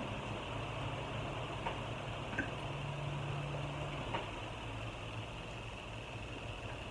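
Steady low mechanical hum of room noise, with a few faint clicks of cutlery against plates while people eat.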